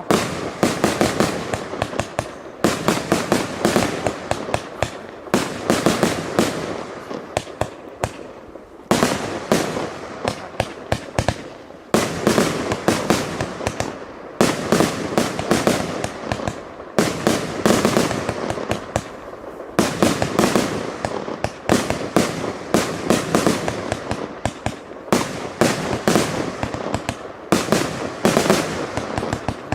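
Fireworks display going off: rapid volleys of sharp bangs and crackles, a fresh flurry starting every two to three seconds.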